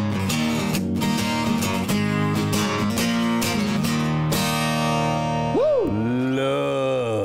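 Steel-string acoustic guitar played solo: quick picked notes and strums, then a chord left ringing about four seconds in. Near the end a sliding tone bends up and down over the fading chord.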